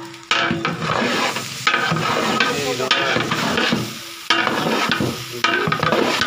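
A ladle stirring and scraping through rice in a large metal cooking pot over the fire, in repeated strokes with brief pauses between them. The rice is being turned to keep it from sticking to the bottom of the pot.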